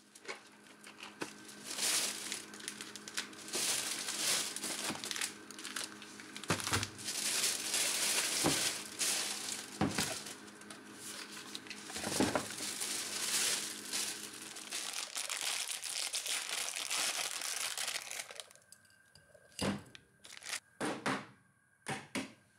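Packaging being handled and crinkled, with a few knocks along the way. The crinkling stops about 18 seconds in, leaving a few separate taps and clicks.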